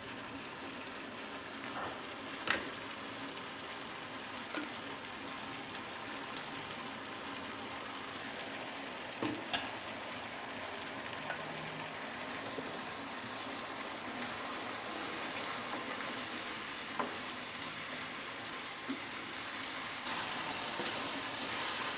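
Chicken pieces frying in a pan with soy sauce, a steady sizzle as the liquid cooks off, with a few sharp taps. The sizzle grows louder about halfway through and again near the end.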